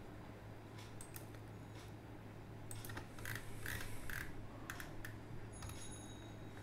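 Faint scattered clicks from a computer mouse as a page is scrolled, a handful of them bunched in the middle, over a low steady hum.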